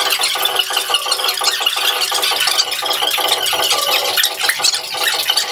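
Steady, dense rattling like a shaker, with no bass.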